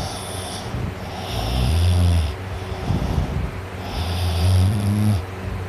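A sleeping teenager snoring loudly: two long, low snores about two and a half seconds apart, each with a breathy hiss on top.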